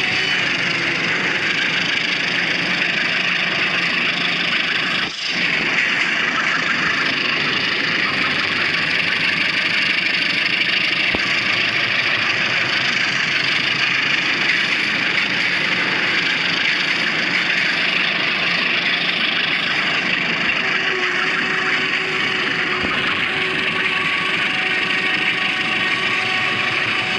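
Diesel train running steadily: a continuous engine note under a loud rushing noise.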